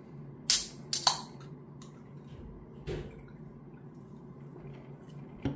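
Ring-pull of a Red Bull can snapped open: a sharp crack and hiss about half a second in, then a second short burst of fizz. Two fainter clicks follow, near three seconds and near the end.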